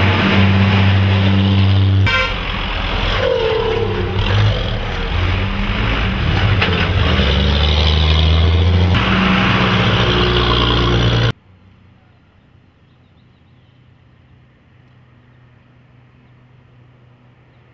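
Large military trucks' engines running loudly as they pass close by, with a short horn toot about two seconds in. About eleven seconds in the sound cuts off suddenly to faint outdoor background.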